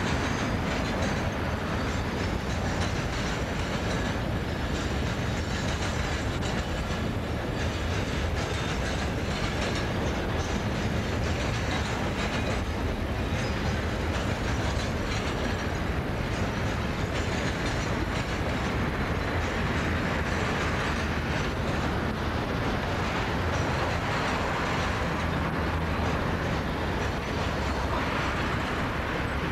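Loaded coal train's steel-bodied hopper wagons rolling past on steel rails: a steady, unbroken noise of wheels on track that holds an even level throughout.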